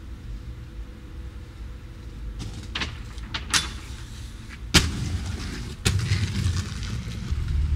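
Several sharp knocks and clacks, the loudest about halfway through, over a low rumble: inline skates striking and rolling on hard ground. After the loudest knock the rumble grows louder and rougher, like skate wheels rolling on concrete.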